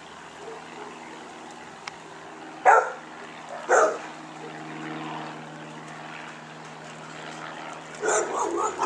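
Propeller aircraft engine droning steadily as it approaches. Two short, loud sounds about a second apart cut through it, and a quick run of similar sounds comes near the end.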